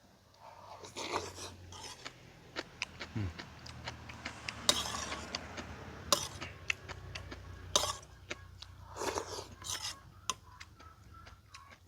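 Someone eating soup: quiet chewing and slurping, with scattered sharp clicks of utensils against a bowl.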